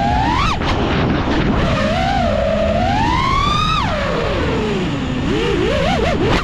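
FPV freestyle quadcopter's brushless motors and propellers whining, the pitch climbing and dropping with the throttle: a quick rise and cut about half a second in, a long climb that peaks near four seconds in and falls away abruptly, then a lower, wavering whine near the end.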